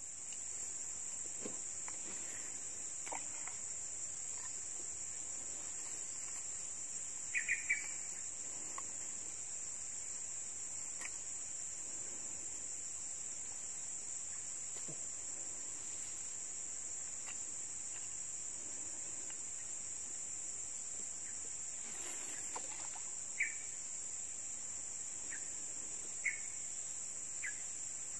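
Steady high-pitched drone of insects, with a few short faint chirps now and then.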